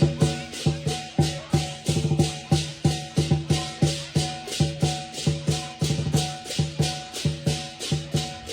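Lion dance drum and cymbals playing a fast, steady rhythm, the cymbals clashing about four times a second over the booming lion drum.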